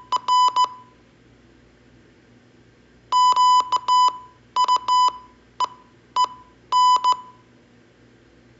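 Morse code practice tones, a pure beep near 1 kHz keyed in dits and dahs. The tail of one sequence ends under a second in. From about three seconds in, the word QUEEN (--.- ..- . . -.) is sent slowly, with wide gaps between the letters.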